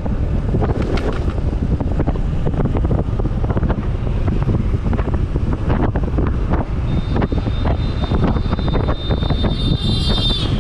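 Wind buffeting the microphone on a moving motorcycle, with road and engine noise beneath it. For the last few seconds a steady high-pitched tone sounds, dipping in pitch as it cuts off near the end.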